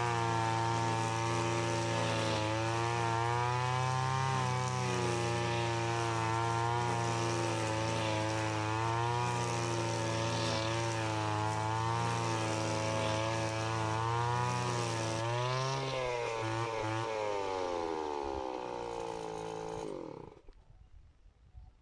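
Stihl FS 90 AV brush cutter engine running steadily at working speed, its pitch rising and dipping slightly as it cuts grass. About 15 s in the revs falter, then the note slides steadily down as the engine is shut off, and it stops about two seconds before the end.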